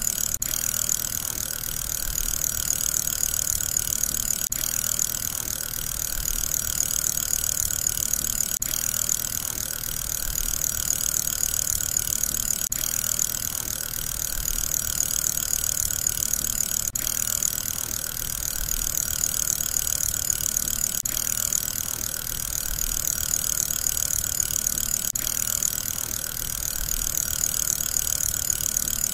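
Fidget spinner whirring steadily on its bearing, a continuous hiss-like hum that swells gently in loudness, with a faint tick about every four seconds.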